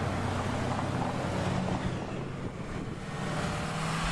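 Road traffic passing close by, over a steady low engine hum.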